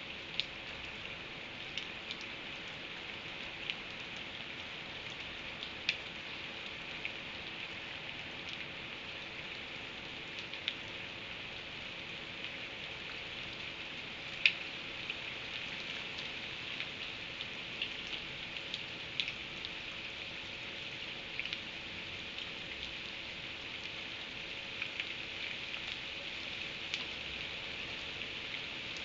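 Steady rain falling, an even hiss with scattered sharp drip ticks every second or so, one louder tick about halfway through.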